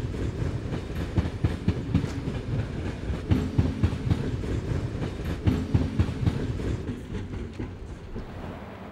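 Dark blue Benelux "Hondekop" electric train rolling past, its wheels clicking over rail joints and points in quick groups of beats about every two seconds over a low rumble. It fades away near the end.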